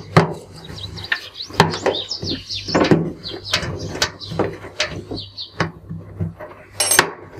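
Rubber door gasket of a Whirlpool front-loading washing machine being worked onto the drum opening by hand: a run of clicks, knocks and rubbing, with short high squeaks, and one sharp snap near the end.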